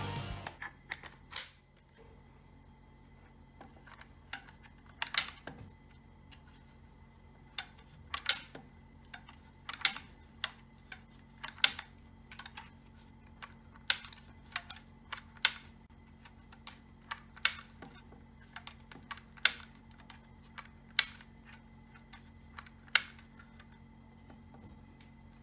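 Sharp plastic clicks and snaps, one every second or two, as rubber bands are stretched along a plastic rubber-band toy gun and hooked one at a time onto its rear catches.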